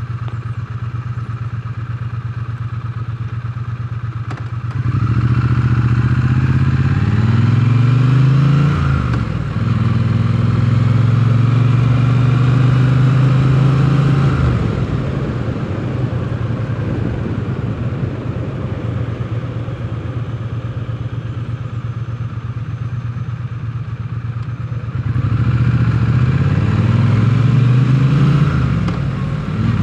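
Triumph Bonneville T100 parallel-twin engine idling at a stop, then pulling away about five seconds in. The engine note rises through the gears with breaks at each shift, settles to a steady cruise in the middle, then rises again through the gears near the end.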